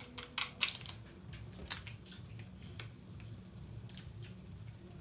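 Pan of instant noodles simmering on a gas stove as masala seasoning is sprinkled in: a few sharp clicks of handling near the start, then scattered faint pops over a low steady hum.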